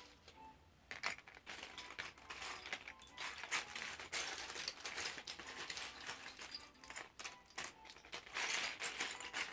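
Loose plastic Lego pieces clattering as hands rummage through a pile and scoop them up, a dense run of small clicks and rattles that starts about a second in.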